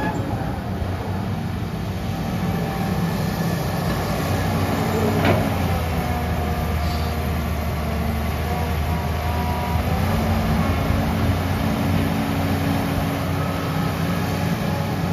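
Komatsu PC150-5 excavator's diesel engine running steadily under working load, its note shifting slightly about four and ten seconds in. One sharp knock about five seconds in.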